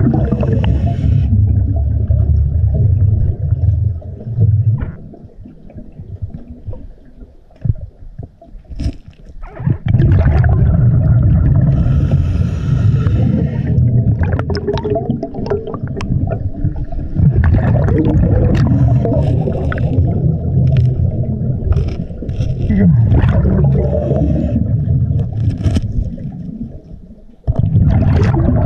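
Underwater sound around a scuba diver: a dense low rumbling and gurgling of exhaled regulator bubbles, with scattered clicks and knocks. It quiets for several seconds about four seconds in, and briefly again near the end, between breaths.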